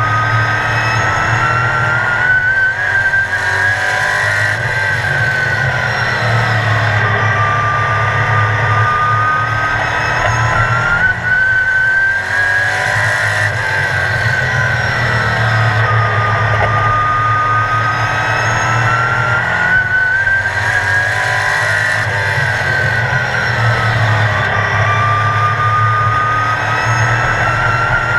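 Sportsman stock car's engine heard from inside the cockpit at race pace, the pitch climbing as it accelerates down each straight and falling as the driver lifts into the turns, lap after lap, about three laps in all.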